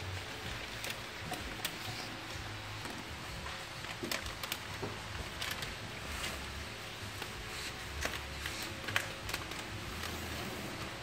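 Plastic sealing film crinkling and rustling, with irregular light clicks, as it is handled and threaded through the rollers of a cup sealing machine.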